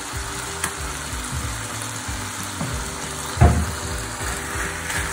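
Chicken strips and onion sizzling steadily in a stainless steel frying pan. A single loud knock comes about three and a half seconds in.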